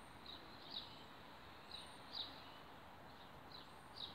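Faint bird chirps: short high notes coming in pairs, a pair about every second and a half, three pairs in all, over a quiet outdoor hush.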